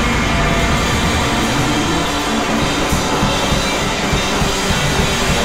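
Live rock band playing loud and full: drum kit with cymbals driving under electric guitars.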